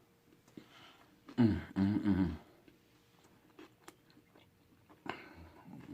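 A person chewing food close to the microphone, with small wet mouth clicks. About a second and a half in comes a loud, hummed "mm-mm" of two parts.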